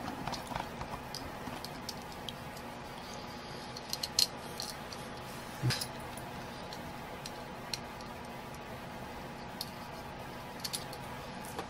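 Scattered light clicks and taps of a small screwdriver and a plastic mini-quadcopter frame being handled, the loudest two about four and six seconds in, over a steady faint hum.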